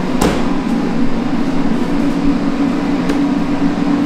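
Steady mechanical hum with a low, even drone, and a sharp click about a quarter second in, with a fainter click near the end.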